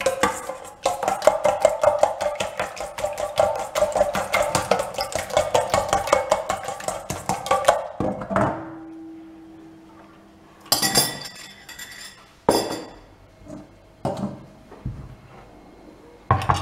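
Egg and Greek-style yogurt being beaten in a stainless steel bowl: a utensil clinks rapidly against the metal for about eight seconds. After that come a few separate knocks and clatters.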